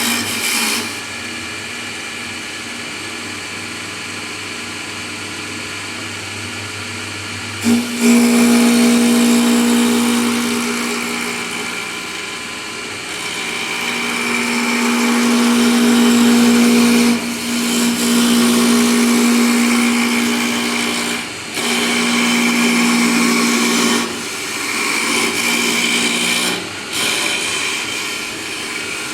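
CNC wood lathe running: a steady motor hum, then from about eight seconds a louder whine that comes and goes in several long passes as the machine turns the wood.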